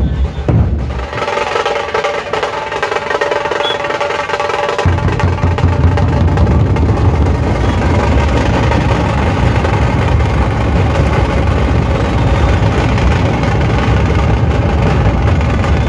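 Dhol-tasha ensemble drumming: rapid tasha rolls with little bass at first, then the big dhol barrel drums come in about five seconds in, adding a heavy, dense beat under the tasha.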